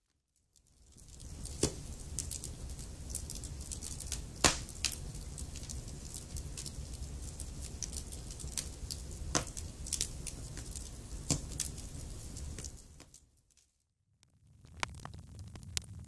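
Wood fire crackling in a fireplace: a steady low rumble of flame with sharp pops and snaps from the burning logs, the loudest about four and a half seconds in. It fades in just after the start, fades out about three seconds before the end, then fades back in.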